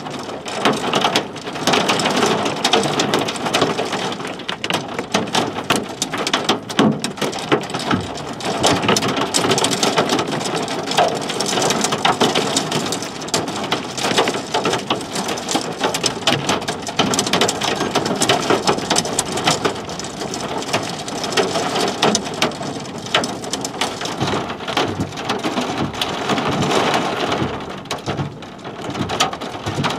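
Heavy rain hitting a storm-chasing vehicle: a steady, dense clatter of individual drop hits on the body and glass.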